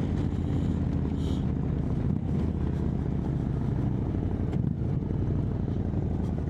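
Indian Chieftain Dark Horse's V-twin engine running at a steady cruising speed through an aftermarket Freedom Performance exhaust, at an even pitch. The exhaust has a freshly replaced gasket and no longer leaks.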